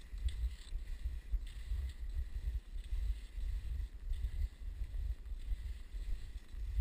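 Wind buffeting the microphone as a low rumble, over faint swishes of skis gliding on snow, about one stride a second.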